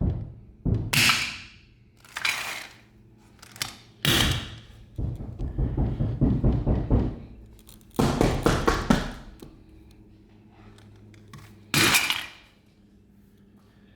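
A toy being smashed: a string of heavy thuds and cracks, coming fast and close together through the middle and ending with one last hit near the end.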